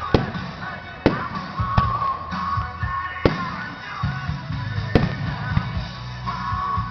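Fireworks shells bursting, several sharp bangs spaced one to two seconds apart, over rock music with guitar and a steady beat.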